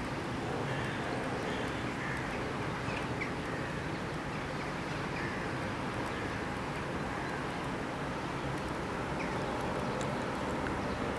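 A steady, low outdoor rumble, with faint short bird chirps scattered through the first half.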